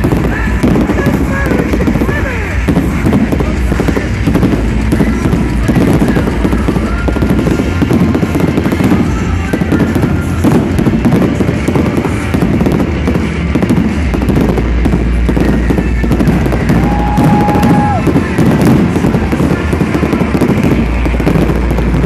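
Fireworks display going off: a dense, continuous crackling and popping of fireworks with many quick bangs.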